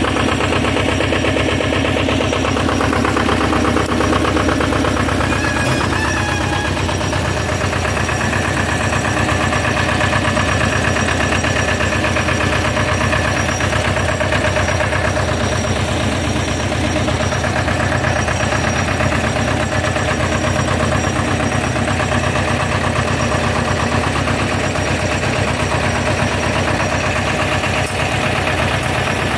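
Diesel engine of a heavy-haulage trailer rig idling steadily, with a fast, even chugging.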